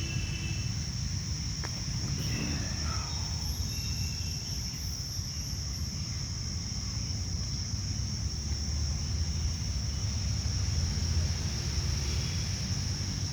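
Steady, high-pitched cricket trill over a low, steady background rumble, with a single faint click about a second and a half in.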